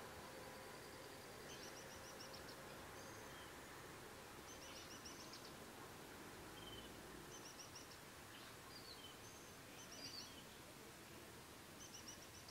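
Faint birdsong: short bursts of quick high chirps, repeated every second or two, over a steady background hiss.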